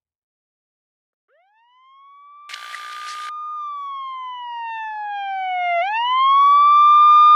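Police siren wailing: after a silent start it rises in pitch about a second and a half in, holds, sinks slowly, then rises again and grows louder near the end. A brief hiss cuts in about two and a half seconds in.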